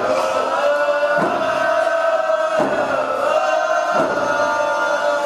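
Group of voices singing a First Nations song in unison on long held notes, over a drum struck on a slow, even beat about every second and a half.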